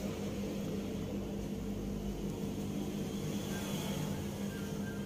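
Steady low motor hum over an even background hiss.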